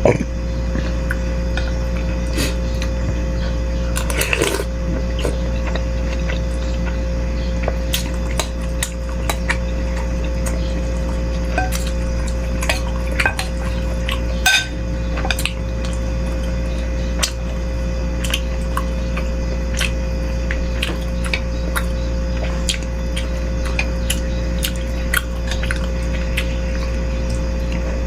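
Irregular clinks of a spoon and fork against a soup bowl while eating bakso, scattered through the whole stretch, over a steady low hum.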